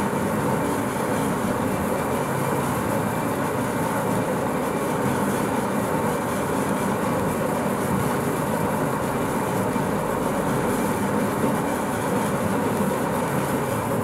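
Turntable pallet stretch-wrapping machine running, its turntable rotating the wrapped pallet with a steady, even mechanical noise.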